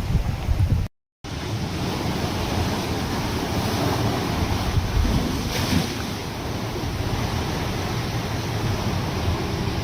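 Storm wind and heavy surf rushing steadily, with wind buffeting the microphone. The sound cuts out for a moment about a second in, then the rush of wind and water goes on.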